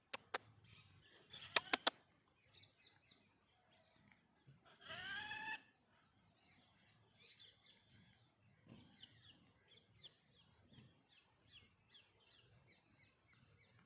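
A crow caws once, about five seconds in, a single harsh call lasting under a second. Faint, quick chirps of small birds repeat through the second half, and a few sharp clicks come in the first two seconds.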